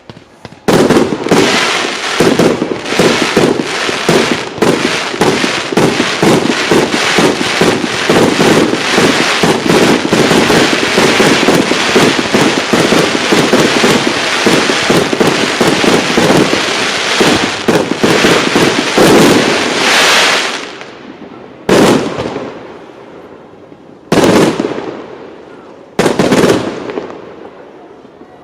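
Fireworks display: a dense, rapid barrage of bangs that breaks off about 20 seconds in, followed by four single loud bangs about two seconds apart, each trailing off.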